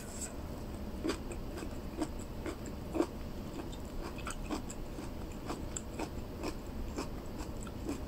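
A person chewing food close to the microphone, with small soft mouth clicks about twice a second.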